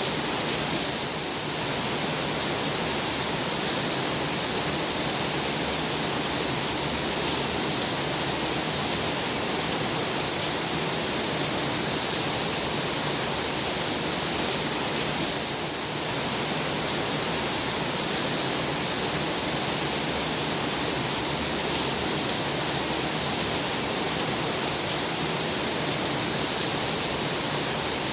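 Heavy rain falling in a steady downpour: a dense, even hiss that dips slightly twice, about a second in and near the middle.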